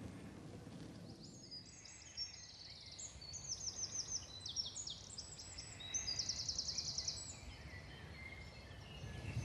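Songbirds singing: several high, quick trills of repeated notes, busiest from about three to seven seconds in, over a faint low background noise.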